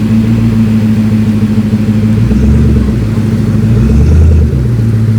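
Car engine running loud and steady, its low note dipping and rising a couple of times as if lightly revved.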